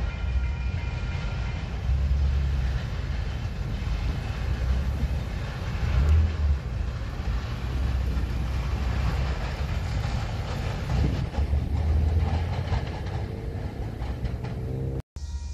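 Union Pacific diesel freight train with open coal hopper cars rolling along the track: a steady low locomotive rumble mixed with the noise of wheels on rail. The sound cuts out for a moment near the end.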